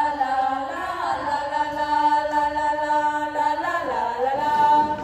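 Three young women's voices singing long held notes together, the pitch shifting about three and a half seconds in before settling on a new held note.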